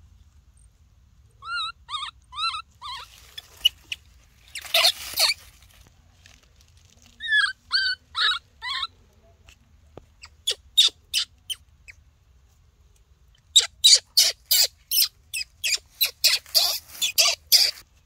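Baby macaque crying out: groups of short, high, rising-and-falling squeaks, then quick runs of sharp cries about three or four a second in the second half.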